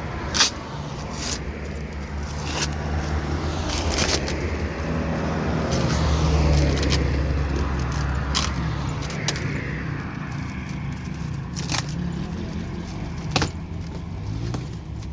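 Cardboard box being opened by hand: scrapes, rustling and sharp clicks of tape and flaps. A vehicle engine hums underneath, growing louder to a peak about six seconds in and then fading.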